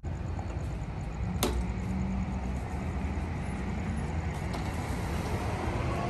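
Steady outdoor background rumble and hiss, with one sharp click about a second and a half in and a few faint ticks later.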